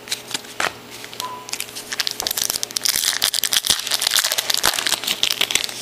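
Foil wrapper of a 2007 Spectrum baseball card pack crinkling and crackling in the hands as it is pulled open, a dense crackle from about two seconds in. A few light clicks of cards being handled come before it.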